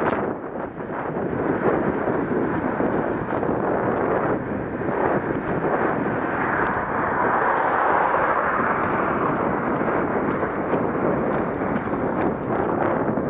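Steady wind rush and road noise on the microphone of a camera mounted on a moving bicycle, swelling a little about halfway through.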